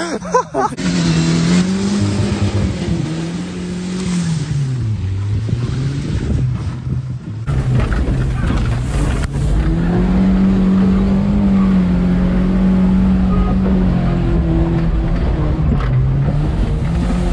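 Ford Ranger pickup's engine revving hard while driven off-road, its pitch rising and falling in long swells as the throttle is worked. From about halfway through it is heard from inside the cab, with a heavier rumble.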